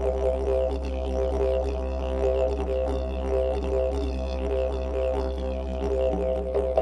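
Background music built on a steady, unbroken low drone.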